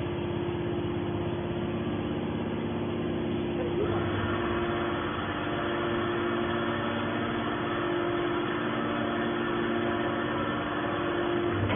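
Hydraulic scrap-metal baler running with a steady hum from its motor and pump; about four seconds in a second, noisier layer joins and the sound grows busier.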